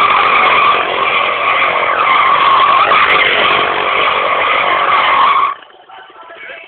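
Sport quad (ATV) ridden hard on asphalt: a loud, steady, high-pitched mechanical squeal that cuts off abruptly about five and a half seconds in, followed by much quieter background.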